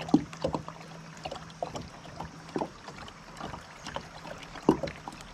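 River water lapping and slapping against a kayak hull close to the microphone: irregular short splashes and knocks, the loudest just after the start and again near the end, over a steady water hiss.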